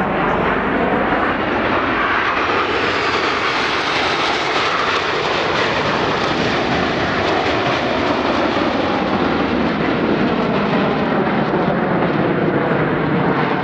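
Steady jet noise from a formation of Aermacchi MB-339 jet trainers, each with a single Rolls-Royce Viper turbojet, flying overhead. A faint high whine falls in pitch a few seconds in as the jets pass.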